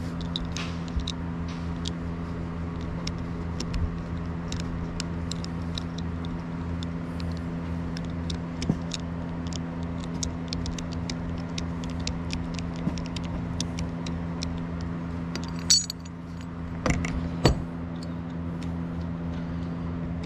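Small metal clicks and tinkles of Torx screws, a screwdriver bit and injector parts being handled while the solenoid head is unscrewed from a 7.3 diesel injector. About sixteen seconds in there is one bright metallic ring, and two sharper knocks come just after, over a steady low hum.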